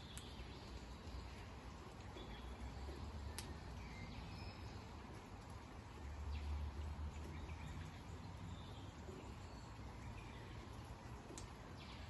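Faint outdoor ambience with scattered short, faint bird chirps and a few sharp clicks. A low rumble swells about six seconds in.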